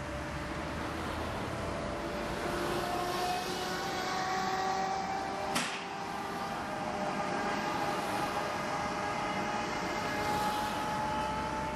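Mobile crane's engine running, its whine climbing slowly in pitch as it works a concrete bridge beam into place. A single sharp click about halfway through.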